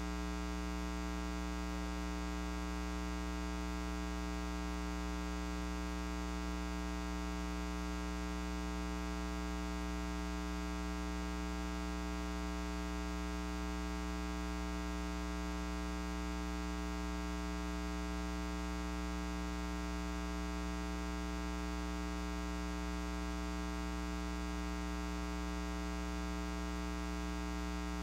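Steady electrical mains hum with a stack of evenly spaced overtones, unchanging throughout, with no other sound above it.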